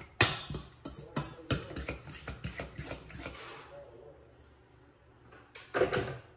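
A metal spoon stirring a wet egg mixture in a stainless steel mixing bowl, a quick run of clinks and scrapes against the bowl that fades out after about three and a half seconds. A few louder clatters come near the end.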